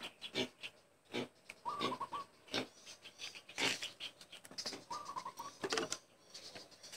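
Light clicks and knocks of plastic bottles being capped and set down, with a short run of bird chirps about two seconds in and another about five seconds in.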